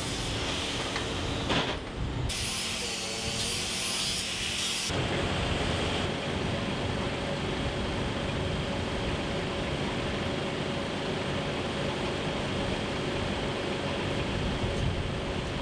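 A steady running noise, like an engine or machine ticking over, with a faint steady hum. A few seconds in, a harsher hissing stretch lasts about two and a half seconds.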